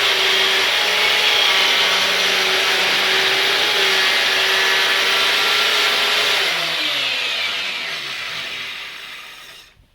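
Power cutting tool, used to cut open a porch column, running at a steady high speed. About six seconds in its motor pitch starts to fall, and it winds down and stops near the end.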